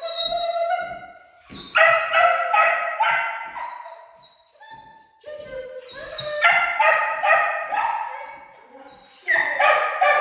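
A dog barking in three runs of quick, high-pitched barks, about three a second, with quieter pauses between the runs.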